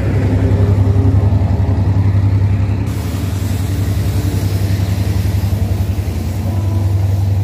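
Diesel locomotive engine running with a steady, loud low throb. About three seconds in, a brighter hiss comes in over it.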